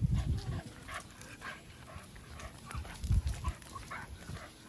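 A dog making brief sounds as it is walked on a leash, among scattered crunching footsteps on dry leaves and paving. Dull thumps come near the start and about three seconds in.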